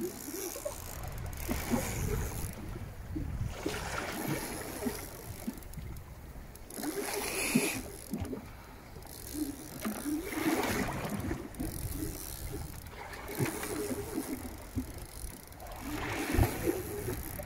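Sea water slapping and splashing against the side of a small boat, with the noise swelling and easing unevenly.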